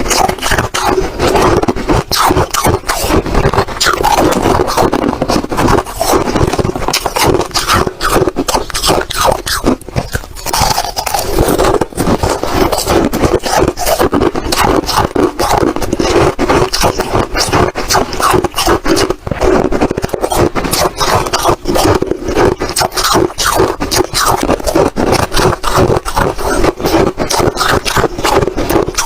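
Ice crunching and crackling close to the microphone: a loud, dense, continuous run of sharp crunches.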